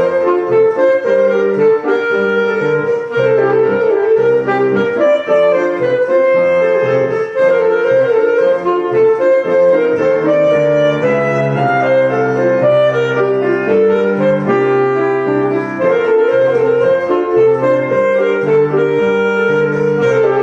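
A solo wind instrument plays a lively piece with piano accompaniment, its melody made of quick wavering figures in the middle range, like a bumblebee's buzzing.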